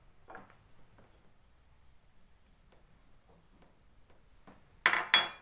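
Faint rustling and light clicks of handling, then two sharp knocks near the end, the second with a brief ringing tone: a glass jar being picked up and set down.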